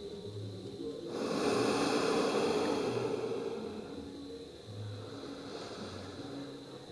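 A long, slow breath near the microphone, a soft airy rush that swells about a second in and fades over the next few seconds, over soft background music.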